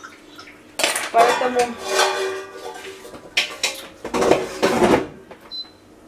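Dishes and cutlery clattering as they are handled on a kitchen counter, in several separate clattering knocks over the first five seconds.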